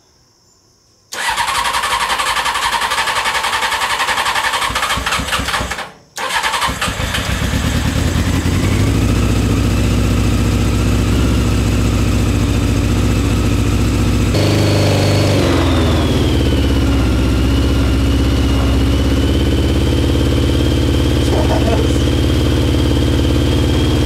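Honda CBR600 inline-four motorcycle engine cranking on its electric starter for about five seconds, pausing, then cranking again and catching, with its just-drained carburettor float bowls refilling. It runs at a fast idle, then the idle drops and settles to a steady lower speed about halfway through.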